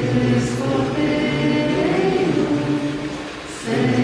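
A group of young voices singing a hymn together in long held notes, with a brief break between phrases near the end.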